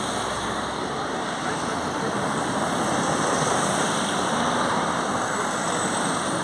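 Steady road traffic noise: an even, continuous wash of vehicle sound with no distinct events.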